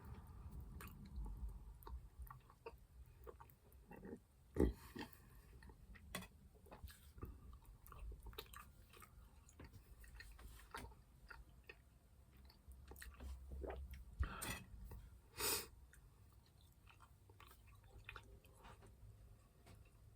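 A person chewing gummy sweets (Haribo Monsters), with soft, wet mouth clicks throughout and a few louder sharp mouth sounds about four and fifteen seconds in.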